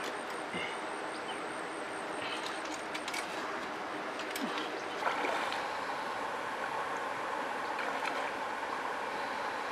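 Steady rush of flowing river water, suddenly louder and fuller about five seconds in. A few light clicks come in the first few seconds.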